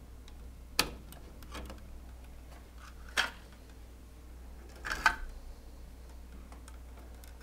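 Three sharp clicks, about two seconds apart, as crimped spade connectors are pulled off and pushed onto the terminal tabs of an oven timer module while it is handled, over a faint steady low hum.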